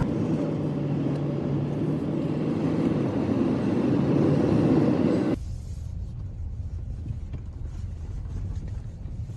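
Steady car road noise, a low rumble with a faint hum, which cuts off abruptly a little past halfway and gives way to a quieter low rumble.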